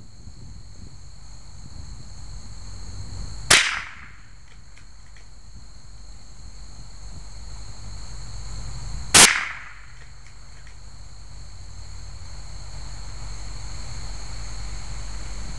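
.22 rifle fired twice, about five and a half seconds apart, each a sharp crack with a short fading tail, over a steady high drone of insects.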